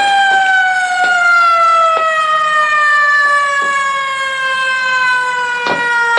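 Alert siren sounding one long wail whose pitch falls slowly and steadily, with a few faint knocks over it.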